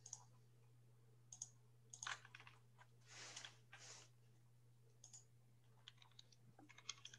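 Faint, irregular clicking of a computer keyboard and mouse, with a few soft breathy rustles in the middle, over a low steady hum.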